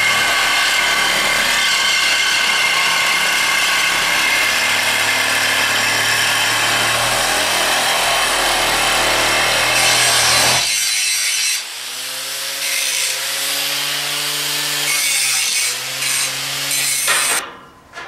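Reciprocating saw (Sawzall) cutting metal: a loud, harsh rasping for about ten seconds, then the cutting noise drops away and the saw's motor hum is heard wavering in pitch before it stops near the end, followed by a few clicks.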